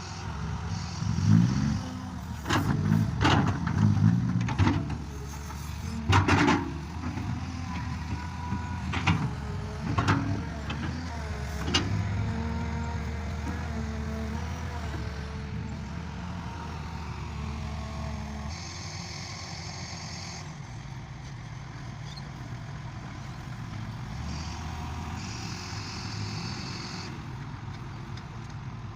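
Farm machinery engine running steadily, with a series of loud clanks and knocks in the first half. Later come two brief high-pitched tones.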